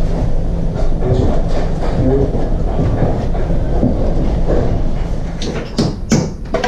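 Steady low rumble of axe-factory machinery running, with a few sharp knocks near the end.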